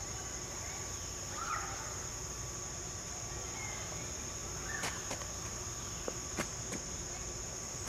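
Steady high-pitched chorus of insects trilling without a break, with a few sharp short clicks about five to six and a half seconds in.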